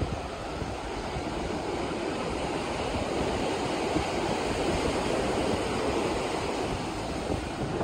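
Surf breaking on the shore: a steady wash of waves with no pauses.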